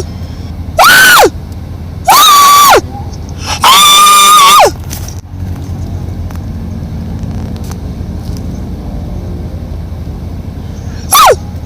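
A pet animal calling loudly in shrill, high, drawn-out cries, three in quick succession with the third the longest, then a short one near the end. Each call rises and falls away at its close, over a steady low hum.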